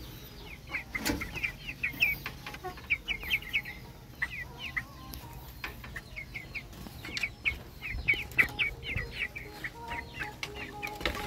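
Chickens clucking, over many short, high, falling chirps scattered throughout, with a single sharp knock about a second in.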